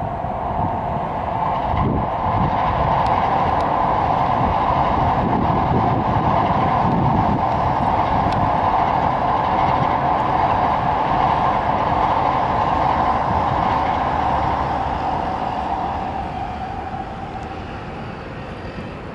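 A 16-car Shinkansen bullet train running past on an elevated viaduct: a steady rushing hum with a strong mid-pitched tone. It swells over the first few seconds, holds, then fades away over the last three seconds as the train passes out of view.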